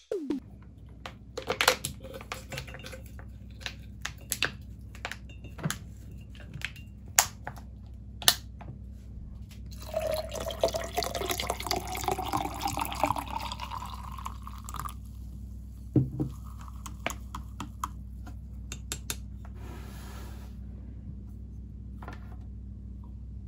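Hoppy poured from a brown glass bottle into a frosted glass beer mug. For about five seconds it splashes and glugs, the pitch rising steadily as the mug fills. Before the pour comes a scatter of sharp clicks and knocks, and a single knock follows it.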